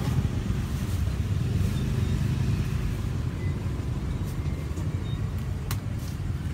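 Steady low background rumble, like nearby road traffic, with a faint click near the end.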